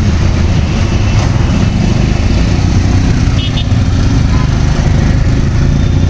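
Royal Enfield Himalayan and KTM Duke motorcycles running, a loud steady engine drone.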